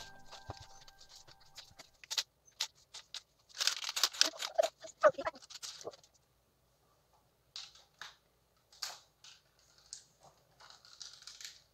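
Hard plastic marble-run pieces clicking and knocking as they are handled and fitted together, in a scatter of short clicks with brief rustling between them, busiest after about three and a half seconds.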